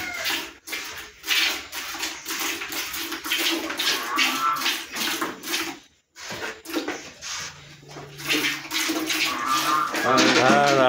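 Milk squirting from a cow's teats into a steel pail as she is milked by hand, in quick rhythmic strokes of about three a second, with a brief break partway through. A short pitched call rises over the squirting near the end.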